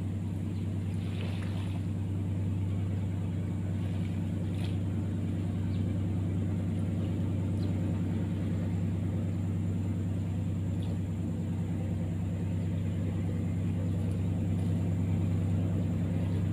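Boat engine on the river running steadily: a low, even drone that grows a little louder near the end.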